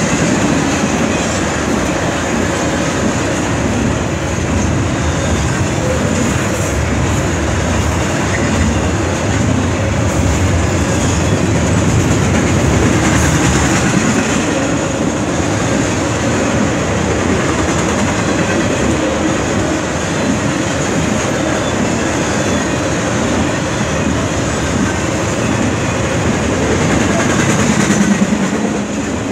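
Double-stack intermodal freight train's container well cars rolling past: a steady rumble and clatter of steel wheels on the rails.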